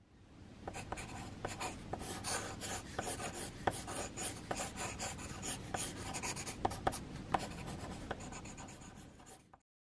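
Mechanical pencil sketching on paper: continuous scratchy strokes with many small ticks as the lead is set down and lifted. The sound fades in at the start and stops abruptly just before the end.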